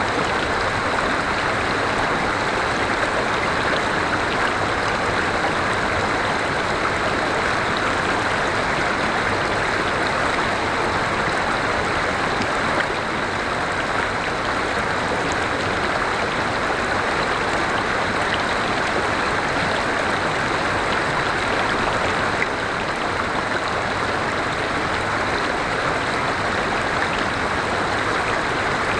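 River water flowing steadily over rocks: a continuous, even rushing of a forest stream.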